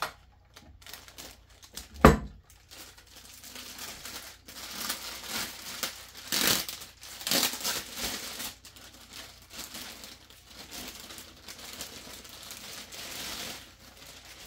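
Clear plastic bag crinkling and rustling as a telescope tube is handled and slid out of it, loudest in the middle. About two seconds in, a single sharp knock.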